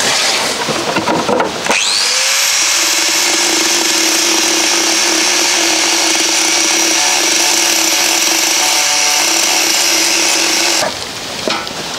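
Small angle grinder spinning up about two seconds in and grinding sheet steel at a steady speed, then switched off near the end. It is grinding the panel back to bare metal, taking off polyurethane coating and surface rust, so there is clean steel to weld to. Wind rushes on the microphone before the grinder starts.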